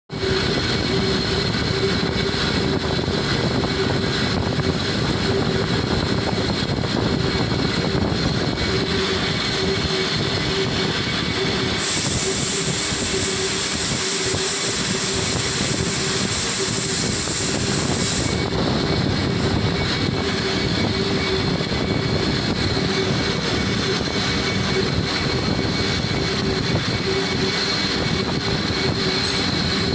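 Lathe running with a steady machine drone and a constant hum; a hissing noise joins in about twelve seconds in and stops about six seconds later.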